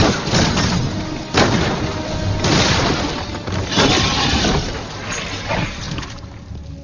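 Film action sound effects: a heavy handgun shot and loud crashing impacts of debris, about one a second, over film score music. It dies down after about six seconds.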